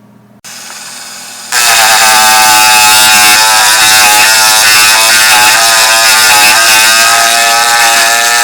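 A handheld electric grinding tool starts abruptly about a second and a half in and runs loud and steady, with a high whine that wavers slightly in pitch.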